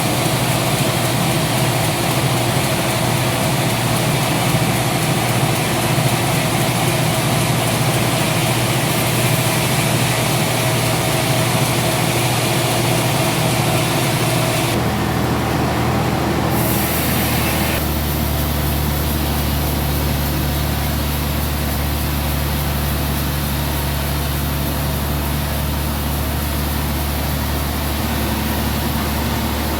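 Sawmill saw and its drive running steadily. About halfway through the sound shifts: the high hiss drops away and a deeper, steady hum takes over.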